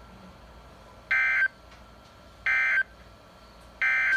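Three short bursts of screechy EAS digital data tones, about a second and a half apart, from a Midland WR120 weather radio's speaker: the end-of-message code that closes the NOAA Weather Radio severe thunderstorm warning.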